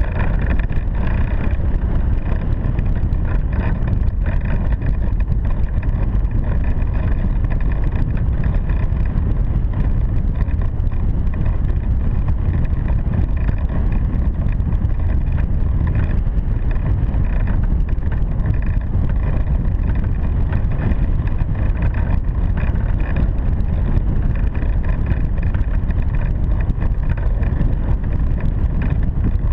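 Steady rush of wind over the microphone of a camera mounted on a hang glider in flight, a deep, even rumble from the airflow.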